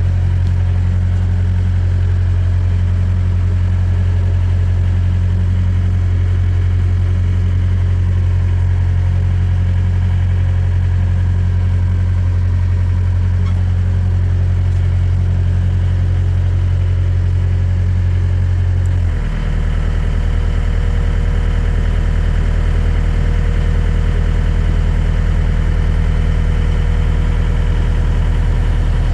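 Excavator's diesel engine running steadily. About two-thirds of the way through, its note briefly dips and settles at a lower pitch.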